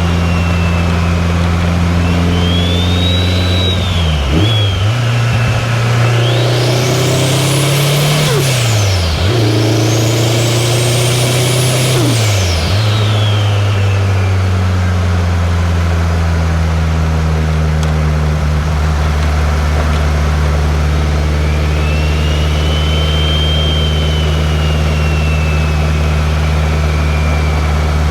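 2003 Subaru WRX's turbocharged 2.0-litre flat-four running while driving. The revs dip sharply and recover three times in the first dozen seconds, like quick gear changes, with a high whistle climbing and falling alongside. The engine then settles into a steady drone.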